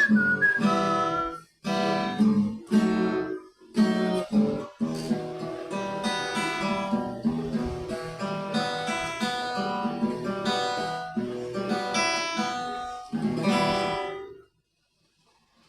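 Acoustic guitar strummed in chords, broken by a few short pauses. The playing stops on a final chord about a second before the end.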